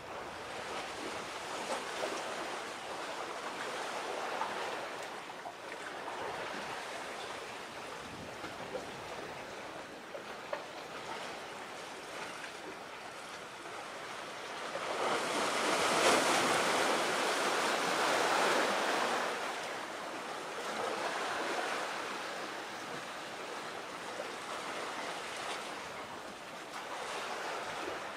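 Waves washing ashore, with wind. The surge grows louder about halfway through for a few seconds, then eases back.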